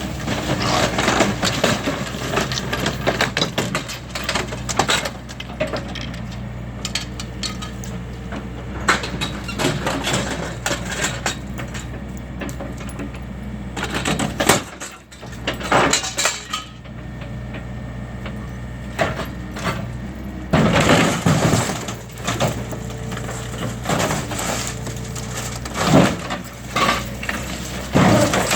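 Demolition: material cracking, splintering and crashing down in irregular bursts over the steady hum of a running machine engine.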